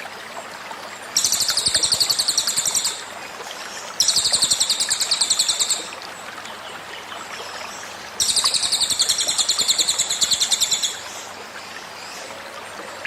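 Cililin bird giving three rapid, high-pitched pulsing trills, its 'tembakan' burst song, each about two seconds long, with the third the longest. A steady stream trickles underneath.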